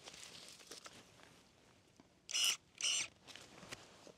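Stihl ASA 20 battery pruning shears cutting through a hibiscus stem: two short, high motor whines about half a second apart, a little over two seconds in. Before them, faint rustling of leaves and stems being handled.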